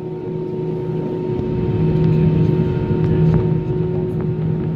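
Inside the cabin of an Airbus A320-214, its CFM56 engines running at low power on the ground: a steady low hum that swells now and then, with a thin steady whine over it.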